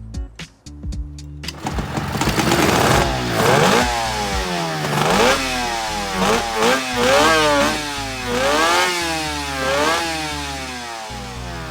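1975 Suzuki GT185's two-stroke twin engine, fitted with freshly welded custom expansion chambers, catches about a second and a half in and is revved repeatedly, its pitch rising and falling with each blip before dropping back toward idle near the end.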